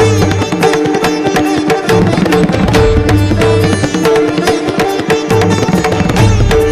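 Indian instrumental music: a plucked string melody in the manner of a sitar over a steady drum beat with repeating bass notes.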